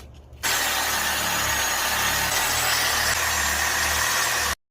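A power tool starts abruptly about half a second in and runs loudly and steadily, with a faint high whine over a hissing noise, then cuts off abruptly near the end.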